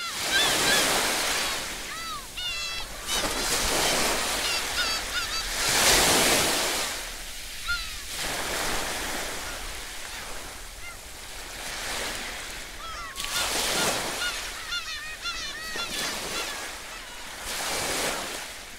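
Sea waves surging and washing over a rocky shore in slow swells every few seconds, with birds giving short, repeated cries over them.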